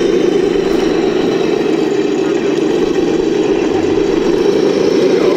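A steady, unbroken low hum with no clear rise or fall, and faint voices in the background.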